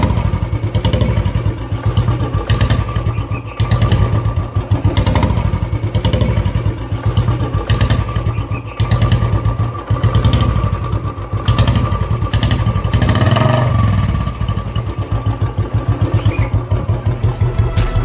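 Royal Enfield single-cylinder motorcycle engine running, its exhaust beating in a fast, even thump. The level swells and eases a few times as the bike is ridden.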